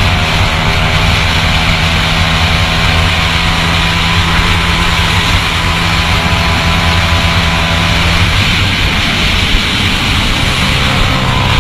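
150 cc motorcycle engine running hard at a steady high speed, heard from the rider's position with wind rushing over the microphone.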